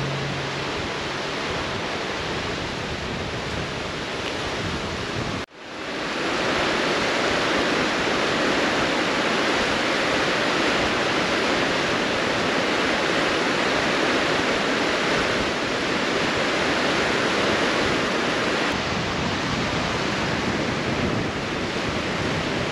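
Steady rush of waves and wind along a big lake's shore. It drops out for a moment about five seconds in, then returns louder.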